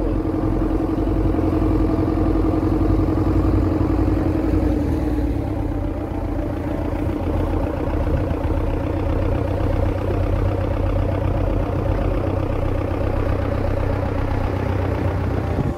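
Small outboard motor on an open boat running steadily under way. A higher note in its sound fades out about five seconds in.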